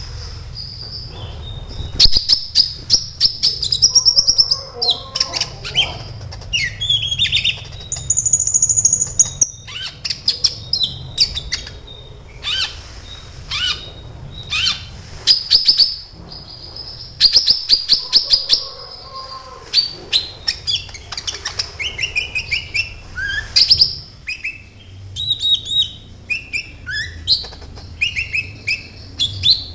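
Caged sunbird (kolibri ninja) singing: rapid high chirps, buzzy clicking trills and short whistled notes in bursts with brief pauses, used as a lure song to set other birds singing.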